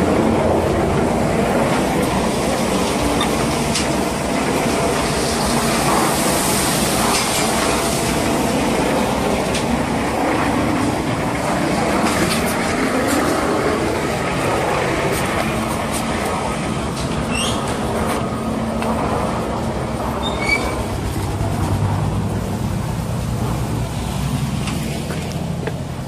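Mobile concrete mixer pump machine running steadily, a continuous mechanical noise with a low hum.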